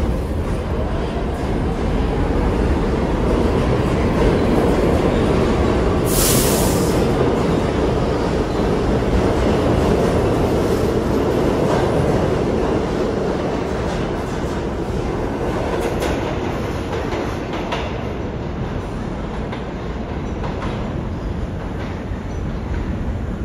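New York City subway train running through the station: a steady rumble of the train and its wheels on the rails, with a short hiss about six seconds in. The rumble grows over the first few seconds and eases off in the second half.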